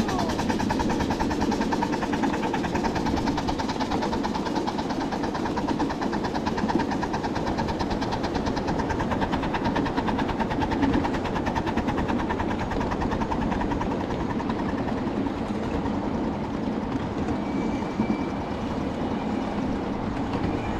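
A 7½-inch gauge live steam locomotive and its riding cars running along the track: a steady run with a fast, even pulse throughout.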